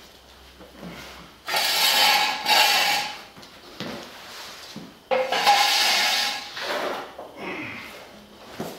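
Two long scrapes, each about a second and a half, of a steel jack stand being dragged out across the concrete floor from under the car, with smaller knocks and rubbing sounds between them.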